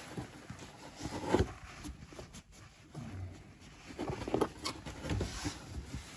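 An electrical power cable being fed and pulled through the gaps around an ATV's plastic body panels and fuel tank: irregular rustling and scraping with scattered light clicks and knocks, one sharper knock after about a second.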